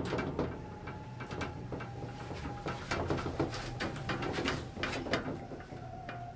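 1975 KONE inclined traction elevator running: a steady whine that slowly drops in pitch over a low hum, with frequent clicks and rattles.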